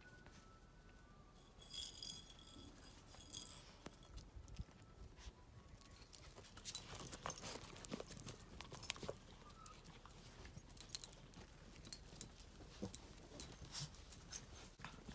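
Cavoodle puppies playing on concrete: brief high-pitched squeals about two seconds in, then a run of light clicks, taps and scuffles of paws close to the microphone, sharpest about eleven seconds in.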